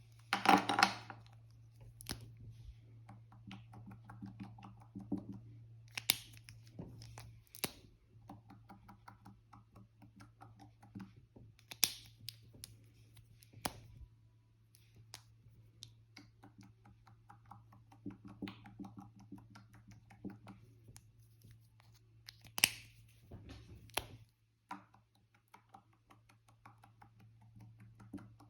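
Close-up slime-colouring handling sounds: markers scratching and scribbling on slime, with sharp clicks and taps throughout. A low steady hum runs underneath and stops near the end.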